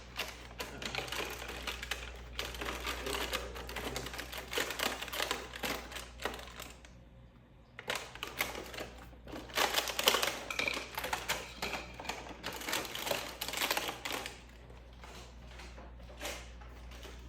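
Rapid, irregular clicking, clattering and rustling of household items and packaging being handled and put away, over a steady low hum, with a short lull about seven seconds in.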